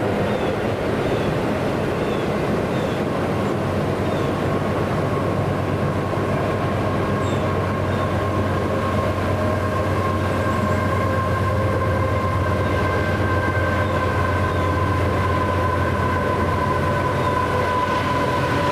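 A train running past, a steady unbroken noise of wheels on rails. A thin whine of a few tones grows stronger over the second half.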